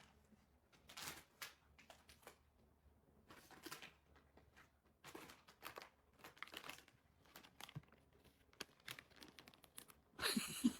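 A wrapper or package being crinkled and pulled at by small hands as a child tries to get it open, in short scattered rustles with a louder one near the end.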